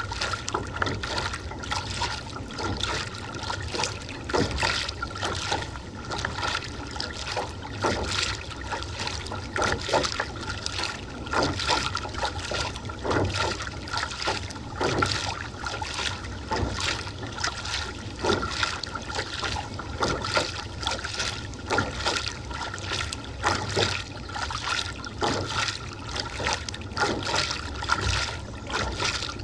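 Kayak paddle strokes: a splash and drip of water from the blade roughly once a second, over steady water noise along the hull. A faint steady high tone sits underneath.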